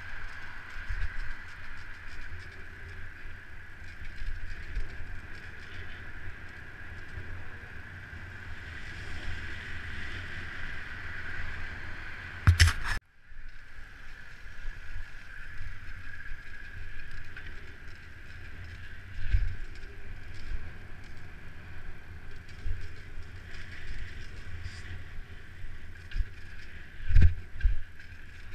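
Mountain bike rolling along city pavement: a steady tyre hum with wind rumbling on the microphone. There is a sharp clatter about halfway through and a few thumps near the end as the bike jolts over bumps.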